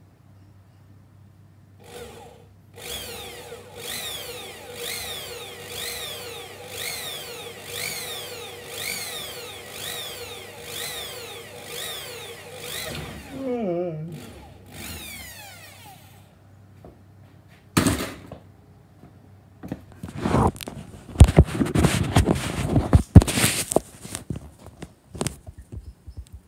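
Makita electric drill boring a small hole into an aluminium motorcycle carburettor body clamped in a vise, for an idle-bypass nipple. The motor's pitch rises and falls about once a second, then winds down about 13 seconds in, and a short second burst follows. Later come a sharp knock and a run of loud, irregular knocks and clatter from handling the carburettor.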